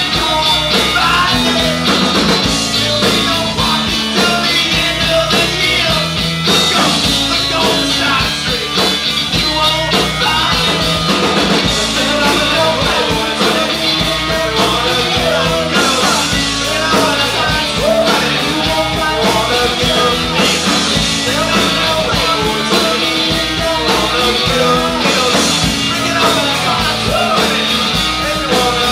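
Live rock band playing at full volume: electric guitar, electric bass and drum kit, with a male lead singer's vocals over them.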